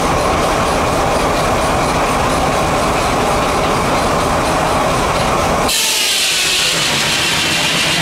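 Antique sawmill driven by a steam traction engine, running with a loud, steady mechanical clatter. Near the end it changes abruptly to a higher-pitched hiss.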